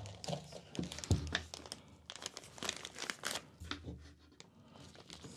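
Clear plastic packaging bag crinkling and rustling as it is handled, with a light knock about a second in as the shock mount is set down on the table.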